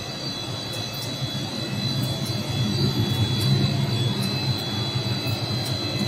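Rubber extrusion and microwave vulcanization line running: a steady machinery hum with a constant high whine, the low rumble swelling about halfway through.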